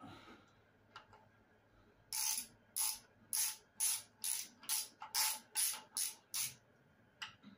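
Hand ratchet clicking through about ten quick back-and-forth strokes, roughly two a second, as the bolts of the rear main seal housing on a Case 207D diesel engine are run down hand tight.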